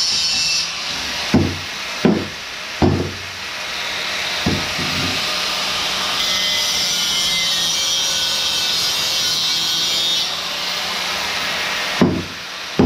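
Angle grinder grinding a metal exhaust pipe: a steady hissing grind that stops just after the start and comes back for a few seconds in the middle, with the motor running under it. Several sharp knocks of the pipe and tool on the wooden bench fall between the grinding, and two more come near the end.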